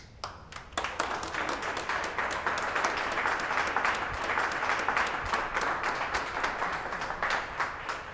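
A group of people applauding. A few scattered claps come first, then steady clapping from about a second in.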